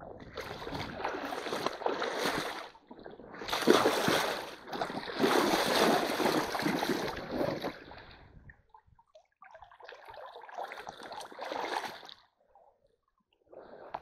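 Water splashing and sloshing as someone wades and stamps through a shallow, stony stream to drive fish into a hand net. The heavy splashing lasts the first several seconds, then after a pause comes a shorter spell of splashing as the net comes up out of the water.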